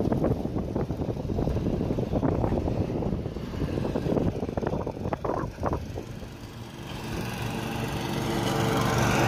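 Wind buffeting the microphone from a moving open vehicle, then from about seven seconds in a riding lawn mower's engine running steadily and growing louder as it comes near.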